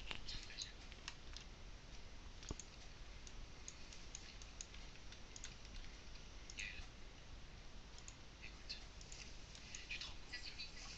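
Faint, scattered clicks of a computer mouse, with a small cluster about two-thirds of the way through and several more near the end.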